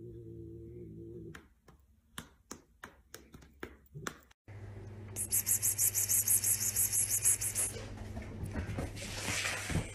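A person calling a cat with a rapid, hissing "pspsps" repeated for a couple of seconds, over a steady low room hum. Before it come a few light clicks and taps.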